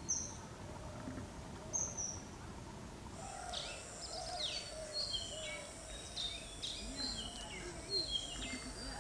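Birds calling in the open: two short high falling chirps, then from about three seconds in a quick run of repeated falling whistled notes over a steady thin high tone.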